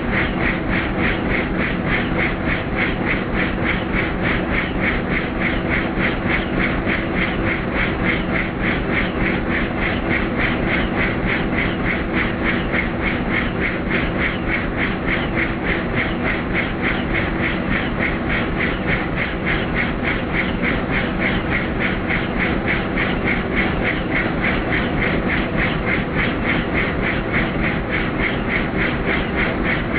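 Helicopter in flight heard from inside the cabin: a fast, even pulsing rotor beat over a steady engine drone.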